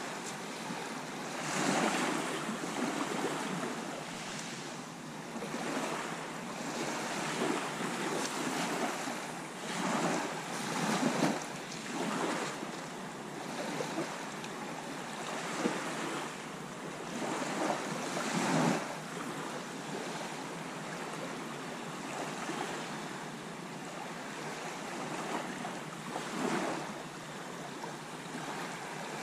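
Small sea waves washing onto a pebbly beach, swelling and falling back every few seconds, over a steady background of wind.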